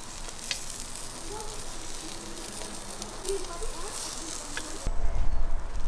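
Salmon steaks on metal skewers sizzling over a charcoal grill: a steady hiss with a couple of sharp clicks. About five seconds in, a louder low rumble cuts in and becomes the loudest sound.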